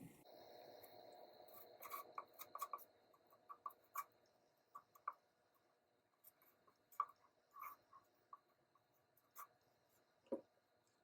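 Faint, irregular scraping and tapping of a spreader working peanut butter over a cardboard paper towel tube, with one soft knock about ten seconds in.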